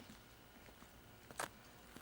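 Near silence with a faint hiss, broken by a single short, sharp sound about one and a half seconds in.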